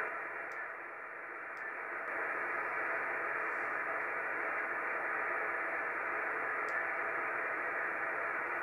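Steady hiss of receiver static from a Yaesu FT-450D's loudspeaker on upper sideband, with no signal on the channel.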